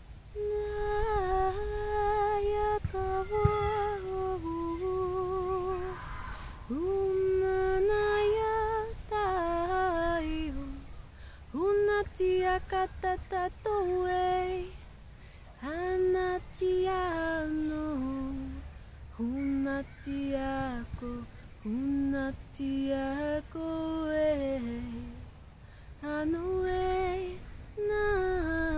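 A woman singing alone, unaccompanied, in wordless light-language vocals: long held notes that swoop up at their start and step down at the end of each phrase, with a quick warble now and then and short breaths between phrases.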